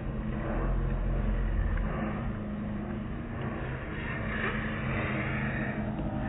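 Automatic soft-cloth car wash running: a steady low machine hum under a hiss of spraying water and cloth strips washing over the car.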